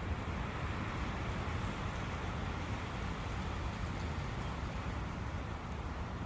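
A forest brook flowing steadily: a constant, even rush of water.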